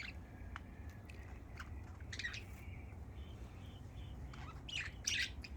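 Small birds chirping: short, scattered chirps, with a louder cluster near the end, over a steady low background hum.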